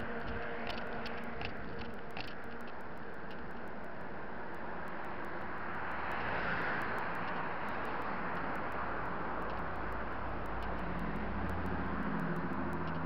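Road traffic going past on a wide road, picked up by a body-worn action camera's microphone as a steady rushing noise that swells about six seconds in. A few light clicks come in the first two seconds, and a low vehicle engine hum builds near the end.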